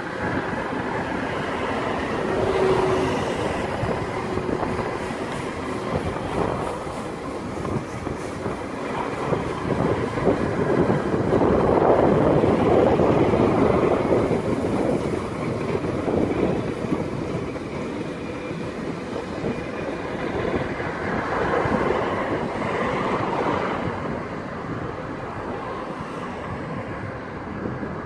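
Freight train of empty flat wagons rolling past, the wheels rumbling and clattering over the rail joints in a continuous run, with a brief wheel squeal about two or three seconds in.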